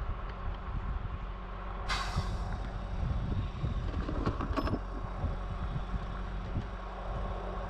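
A truck engine runs steadily under the raised work bucket, a low even drone. About two seconds in comes a sudden sharp hiss that fades within half a second, and around four and a half seconds a few sharp metallic clicks.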